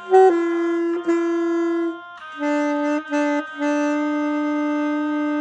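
Saxophone played by a beginner three lessons in: one held note, then a lower note sounded three times, the last held for about three seconds.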